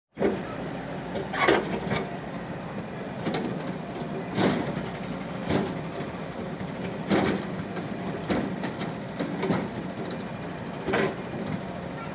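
Excavator running steadily, with about eight sharp metallic clanks or scrapes spaced roughly a second or so apart.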